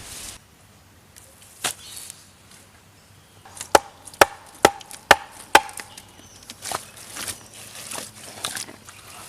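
Blows of a tool on wood: a single strike, then a run of five sharp strikes about twice a second with a faint ring, followed by lighter knocks and handling noises.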